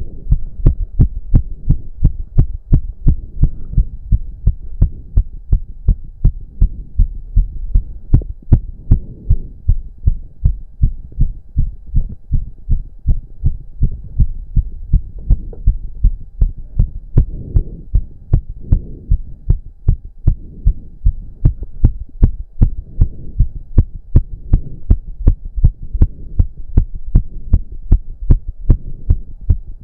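A man's heart beating fast and pounding from intense cardio exercise, close-miked so each beat comes through as a strong, deep thump. The beats are quick and regular, several every second.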